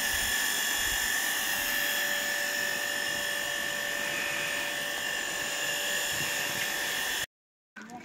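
A steady, high-pitched whine made of several held tones over a hiss. It cuts off abruptly about seven seconds in.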